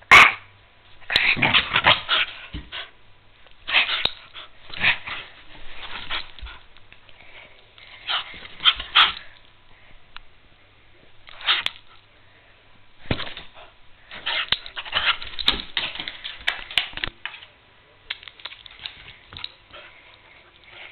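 Small pet dog worked up in play, barking in bursts amid the crinkling of a plastic bag, in a string of flurries with short pauses between them.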